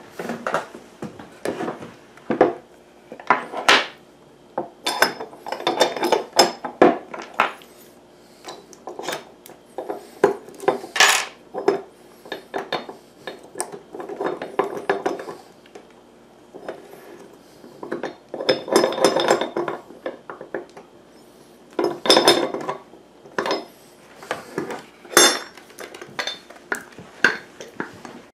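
Irregular knocks, clunks and metallic clinks of a steel trailer-hitch ball mount, its pin and a heavy wooden mount block being handled and set down on a tabletop, in several spells of clatter with short lulls between.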